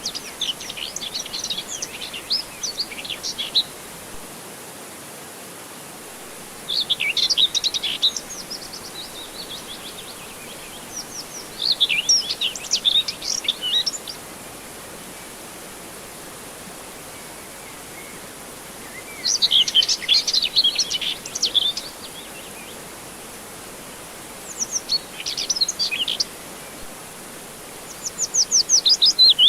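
Songbirds singing in quick, twittering phrases of rapid high chirps, a burst every few seconds, over a steady soft background hiss.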